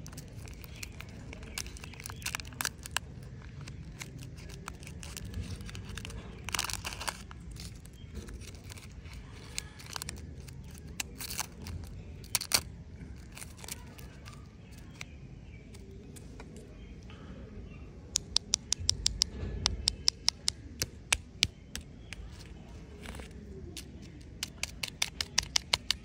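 Lollipop wrappers being peeled off and crinkled by hand: scattered crackles and tearing, with runs of rapid sharp crinkles about two-thirds of the way through and again near the end.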